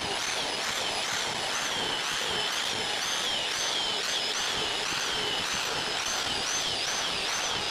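Handheld electric drill running continuously, boring holes through rubber track belting with a plug cutter made from a piece of pipe. A steady motor noise with a high whine that wavers up and down in pitch about twice a second.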